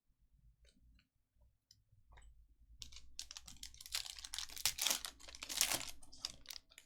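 Trading cards being handled with a few light clicks, then a foil card pack crackling and crinkling as it is torn open, from about three seconds in until just before the end.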